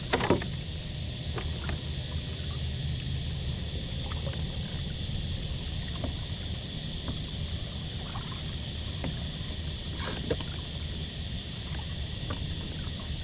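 Kayak out on the water: a steady wash of water and wind noise, with a few small knocks and clicks as a crab-trap line is hauled in by hand. The sharpest knocks come just after the start and again about ten seconds in.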